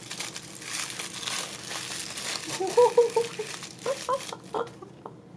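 Tissue paper crinkling and rustling as it is unwrapped by hand. The crinkling thins out in the second half, where a few short pitched sounds come in.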